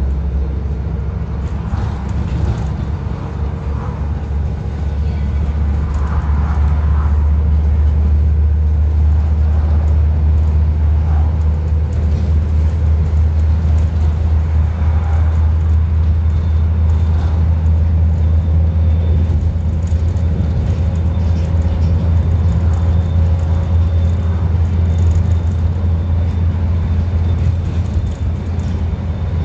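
Scania N230UD double-decker bus engine, a 9-litre five-cylinder diesel, heard from inside the passenger saloon as it pulls steadily at road speed. A deep, unbroken engine drone sits under road noise, and it grows louder about five seconds in as the engine works harder.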